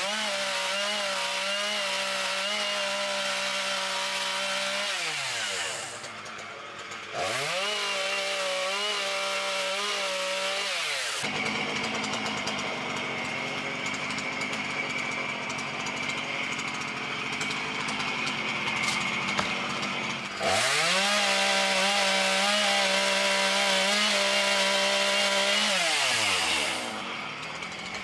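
Gas chainsaw revving to full throttle in bursts and falling back toward idle between them. In the middle there is a longer stretch where the steady engine pitch gives way to a harsher noise as the chain cuts through a fallen tree limb.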